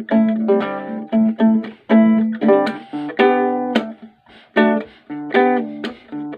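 Small nylon-string guitar played solo, chords strummed and plucked in a steady rhythm, with a short break about four seconds in.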